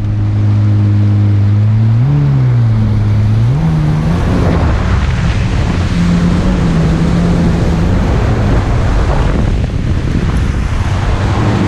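Watercraft engine revving, its pitch climbing twice in the first few seconds, then running steadily at speed, with rushing water and wind noise across the microphone.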